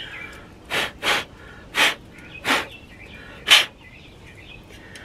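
Five short, sharp puffs of breath over about three seconds, blowing dust off a dirty solar-powered fan.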